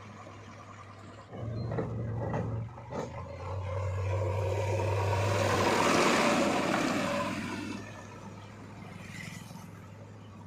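Backhoe loader's diesel engine running, its hum stepping up about a second and a half in as it works. A loud rushing noise swells through the middle and fades away near the end.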